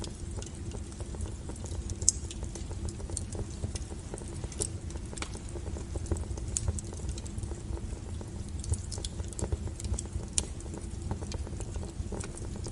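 Wood fire burning with a low steady rumble and irregular sharp crackles and pops, a stronger pop about two seconds in.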